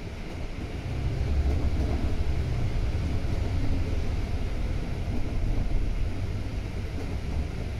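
Volvo B9TL double-decker bus running with its diesel engine rumbling steadily, growing louder about a second in.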